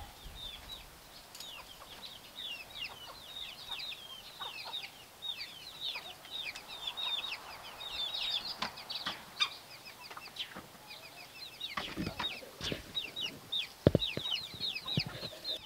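Backyard chickens calling: a dense stream of high, short chirps, with a few sharp knocks near the end.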